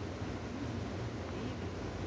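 Steady low rumble and hiss inside a passenger train carriage.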